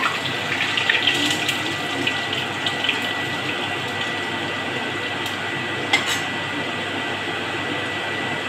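Garlic and cumin sizzling in hot oil in an iron kadhai, a steady frying hiss with crackling in the first few seconds. A single sharp click about six seconds in.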